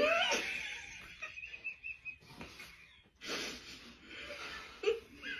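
A person's high-pitched laugh: a thin, wavering squeal that fades over about two seconds, then short breathy gusts of laughter.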